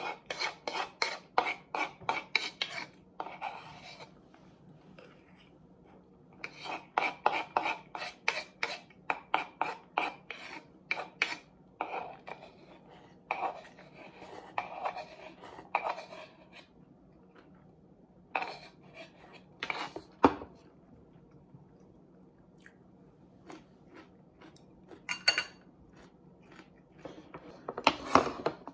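A spoon scraping and clicking against a wooden bowl while scooping food, in quick runs of several strokes a second with pauses between, then a few single taps near the end.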